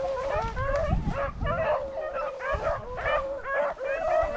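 Several hunting dogs yelping and baying over one another, an almost continuous run of short, high calls: a pack giving voice as it runs a rabbit.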